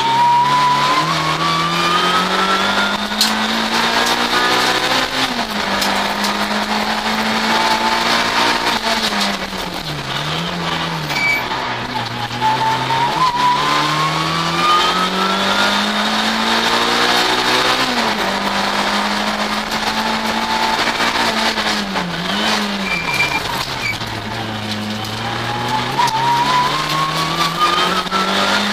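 Race car's engine heard from inside the cabin during a slalom run, repeatedly climbing in pitch under acceleration and dropping at gear changes and braking, with two quick throttle blips around the middle and near the end. A high whine rises and falls with the engine.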